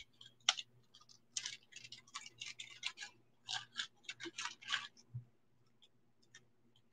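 A quick, irregular run of light clicks and rattles for about three seconds, from small objects being handled, over a faint steady electrical hum.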